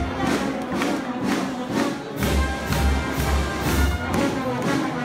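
Procession band music with a steady low drum beat, about two and a half beats a second, that is missing at first and comes in about two seconds in.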